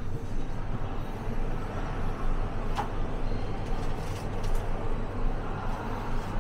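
Steady low rumble and hum of a parked double-decker coach's running machinery, heard from inside the cabin, with one light click about three seconds in.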